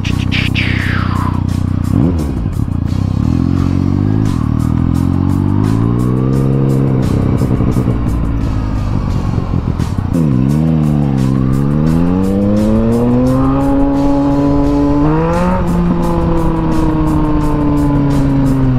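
Motorcycle engine heard from the rider's seat while riding, its pitch climbing twice under acceleration, dipping in between, then easing off near the end.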